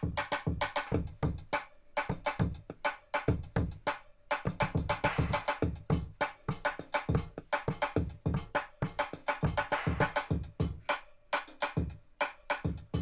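Akai MPC Live II drum machine playing a beat: a quick, steady rhythm of drum hits, deep thumps mixed with sharper clicks.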